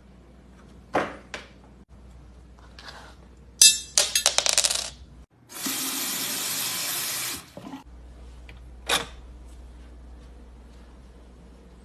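A series of separate household noises: two sharp clicks about a second in, a rattling clatter of rapid clicks like small hard objects dropping around four seconds in, then about two seconds of steady rushing noise, and another sharp click near nine seconds.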